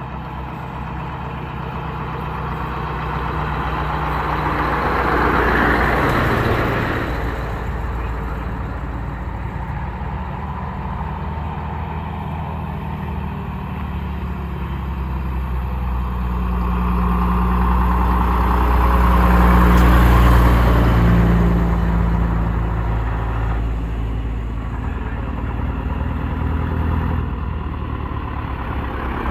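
Old vehicles driving past one after another with engines running over a steady low engine hum. Two pass loudest, about six seconds in and again around twenty seconds in, each swelling up and fading away.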